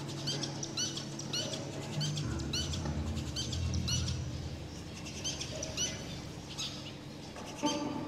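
Zebra finches giving short, repeated nasal calls, roughly two a second, over the low drone and hum of amplified electric guitars. Near the end the guitar strings are suddenly set ringing, as a bird lands on them.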